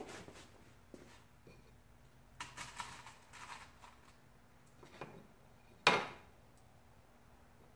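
Small tools and parts being handled on a wooden workbench: a short run of light clattering clicks about two and a half seconds in, then one sharper knock of something set down about six seconds in, the loudest sound.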